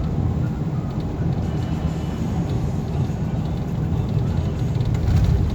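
Steady engine and road rumble heard from inside a moving vehicle.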